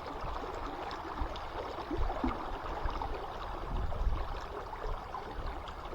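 River water flowing and rushing, a steady wash, with uneven low rumbles underneath.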